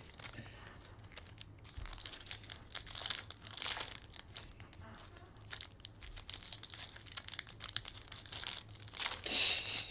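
Foil trading-card pack wrappers crinkling and tearing as they are ripped open by hand, in short scattered bursts, the loudest near the end.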